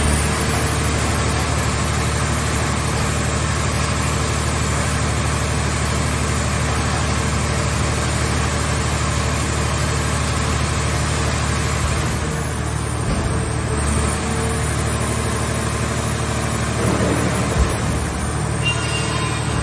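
Hydraulic scrap-car baler's power unit running with a steady drone as its hydraulic cylinders lift the press lids open, with a single knock near the end.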